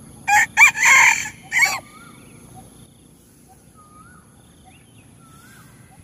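A rooster crowing once, a cock-a-doodle-doo about a second and a half long near the start.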